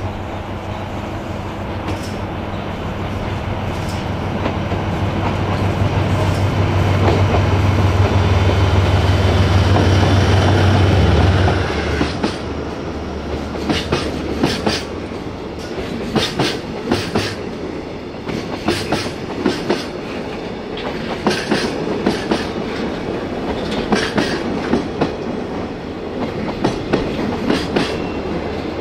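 Diesel-hauled freight train passing: the locomotive's engine drone grows louder and ends abruptly about eleven seconds in as it goes by. The wagons then roll past with a steady clickety-clack of wheels over rail joints.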